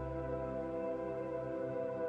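Ambient background music: a steady drone of held tones with no beat.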